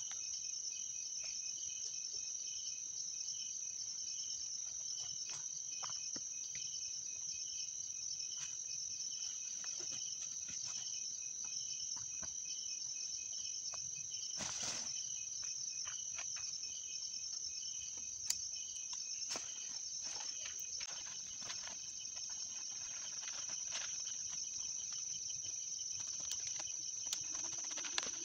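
Night insects trilling steadily: one high continuous buzz with a lower rapidly pulsing chirp under it. Scattered light knocks and rustles come through, with a louder one about halfway.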